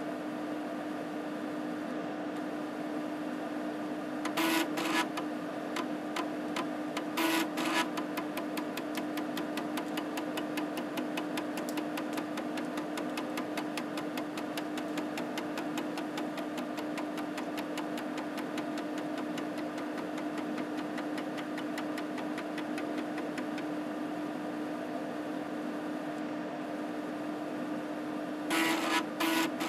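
3.5-inch floppy drive of an Epson SD-800 dual drive under PC-Doctor seek tests on a 720K disk, its spindle motor humming steadily. Twice in the first eight seconds the head stepper buzzes in quick multi-track sweeps (funnel seek), then it clicks one track at a time in an even ticking run for about twenty seconds (track-to-track seek). Near the end there is another loud buzzing sweep.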